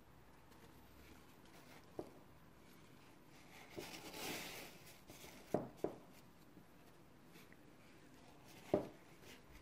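Paper napkins being handled and unfolded, with a short rustle of paper about four seconds in. A few light knocks on the table break in: a click near two seconds, two close together a second and a half later, and one near the end.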